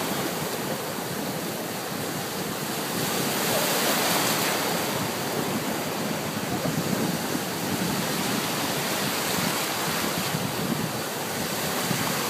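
Ocean surf breaking and washing through the shallows, a steady rushing that swells and eases in slow surges.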